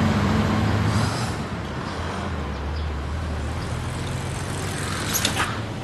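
A bus's engine rumbling steadily, with a short hiss of air about five seconds in.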